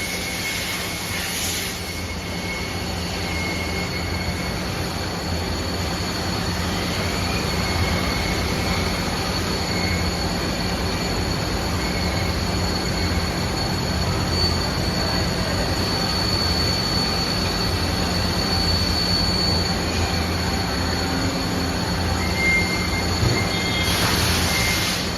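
Okuma Captain L370MW CNC turning center running: a steady mechanical noise with a low hum and a thin high whine that holds throughout.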